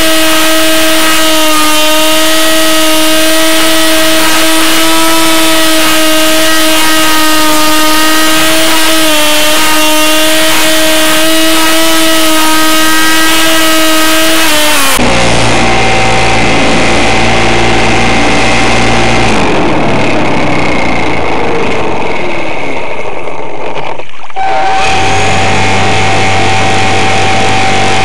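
RC model airplane's motor and propeller buzzing loudly and steadily, close to the onboard camera. About halfway through the pitch drops to a lower, rougher tone, and it briefly cuts out near the end.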